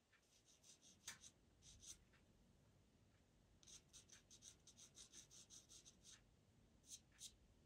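Pastel pencil scratching on Pastelmat paper in short, faint strokes: a few scattered strokes, then a fast run of about four to five strokes a second in the middle, and two more near the end.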